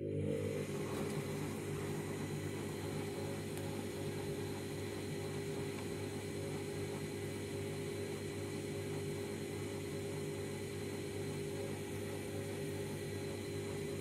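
Candy Grand'O Vita 7 kg washing machine running a 90 °C wash in its heating stage: a steady motor hum as the drum turns, with water swishing inside.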